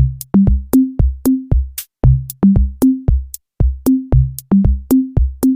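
Electronic background music: a drum-machine beat with deep kick drums and crisp clicks, about four hits a second, over short bass notes.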